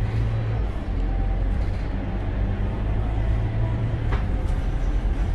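Scania K230UB bus's rear-mounted five-cylinder diesel engine running while the bus drives, heard from inside the passenger cabin as a steady low drone with road noise. A brief click about four seconds in.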